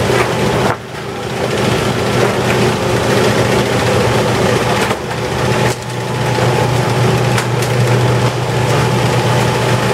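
Steady machinery din of a factory ship's fish-processing deck: a constant low hum with a faint steady whine above it. The noise drops off sharply about a second in and again near six seconds, each time building back up.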